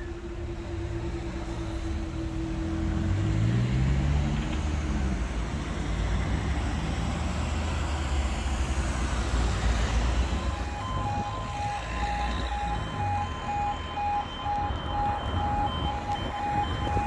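Road vehicles pull away and cross a level crossing while its barriers rise, with a steady hum under them. About ten seconds in, the crossing's E2S electronic alarms start a rapid pulsing tone as the next barrier-lowering sequence begins.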